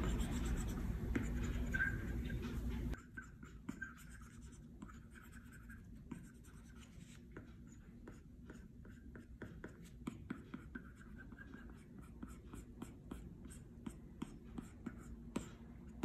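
Apple Pencil tip tapping and scratching across an iPad Pro 12.9 screen in quick short strokes. A loud low rumble covers the first three seconds and cuts off abruptly.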